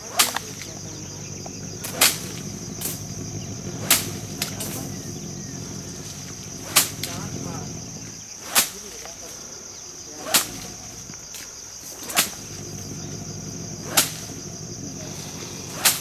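Sharp whip-like cracks about every two seconds, from a long wooden stick being swung and struck, over a steady high drone of insects.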